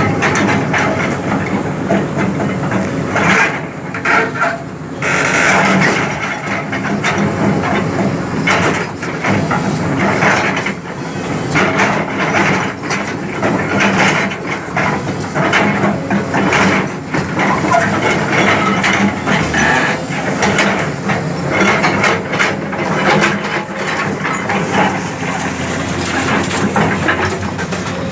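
Bulldozer working: its diesel engine runs steadily under a constant din, with frequent clanks and knocks from the steel tracks and blade.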